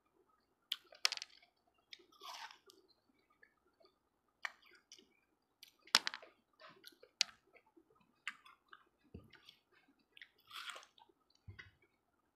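Watermelon being bitten and chewed close to the microphone: several crisp, wet crunching bites with softer chewing between them, and two longer wet sounds about two seconds in and near the end.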